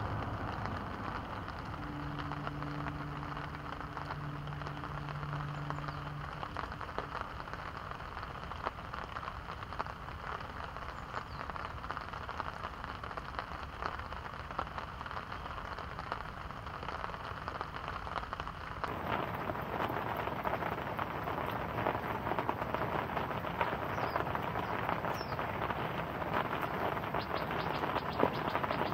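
Steady rain falling on a pond, with a brief low hum from about two to six seconds in.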